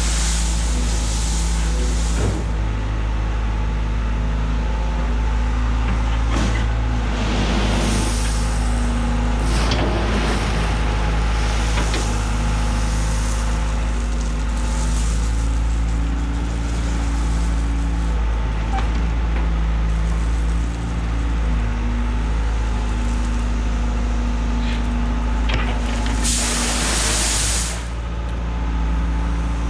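Bobcat 190 loader's diesel engine running steadily under a working load, its pitch shifting slightly, with a few short bursts of hissing noise, the strongest near the end.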